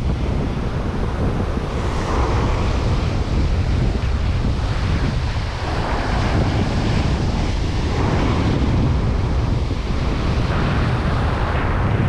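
Ocean surf breaking and washing in foaming surges every few seconds, with strong wind buffeting on the microphone.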